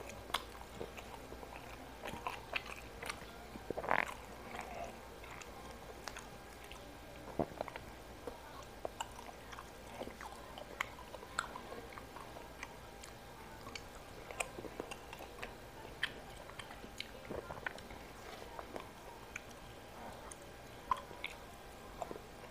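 A person chewing and biting food close to the microphone, mukbang-style, with many small irregular clicks from the mouth.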